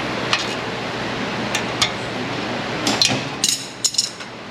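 Metal hand tools clinking: a socket, extension and ratchet knock against each other and the engine parts in several sharp separate clinks, the loudest cluster near the end.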